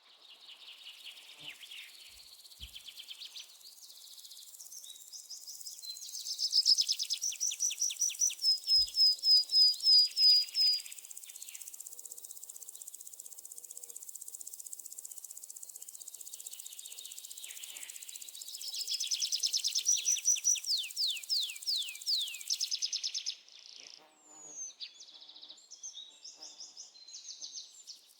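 Rainforest ambience: birds singing fast series of sweeping notes over a steady high-pitched insect drone. The song swells loud twice, about six seconds in and again around nineteen seconds in. The drone cuts out about 23 seconds in, leaving scattered chirps.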